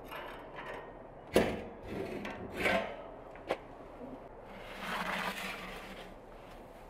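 The metal door of a domed brick oven is handled and lifted off with a sharp knock about a second and a half in, followed by two lighter knocks. Then a metal baking tray scrapes out across the oven's brick floor.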